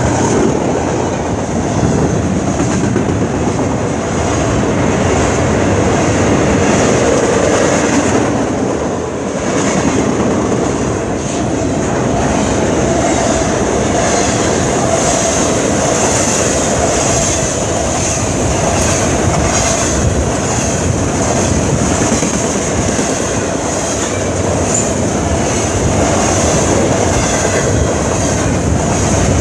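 Train rolling past: a steady loud rumble of wheels on the rails with a clickety-clack over the joints. The sound dips briefly about nine seconds in.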